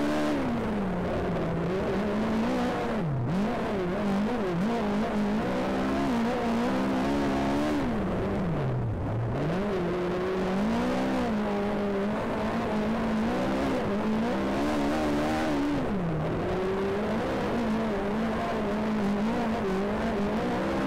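Speedway race car engine under racing load, its pitch dropping sharply three times as the throttle comes off for the turns and climbing back as it accelerates out.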